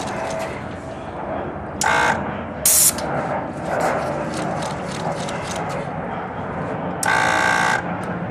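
Harley-Davidson Road King's air-adjustable rear shock being worked by its switches: short electric buzzes about 2 s in and again for most of a second near the end, and a brief loud hiss of air just before 3 s, over a steady background noise with faint clicks.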